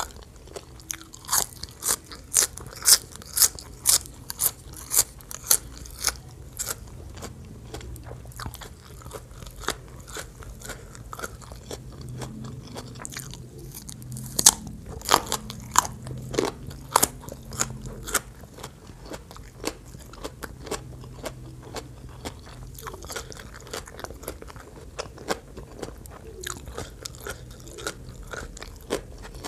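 Close-miked crunching and chewing of crunchy food from a plate of papaya salad. Rapid loud crisp crunches come in the first several seconds and again past the middle, with quieter steady chewing between and toward the end.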